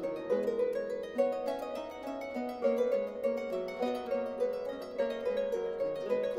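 Triple harp playing a quick, continuous line of plucked notes in Baroque music.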